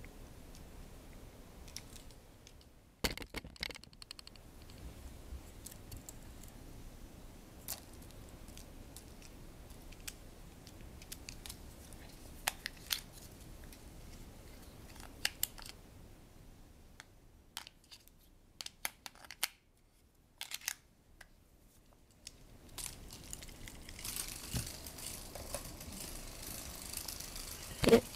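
Scattered light clicks and taps of a plastic butterfly cat toy being handled. From about 24 seconds in, the toy's small motor whirs steadily.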